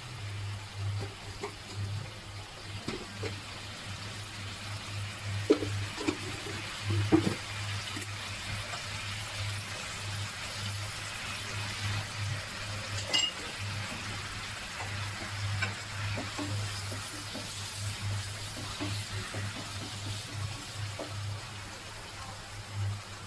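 Broccoli and small octopus sizzling and simmering in sauce in a nonstick wok, with a few sharp knocks of a utensil against the pan a few seconds in. A steady low hum runs underneath.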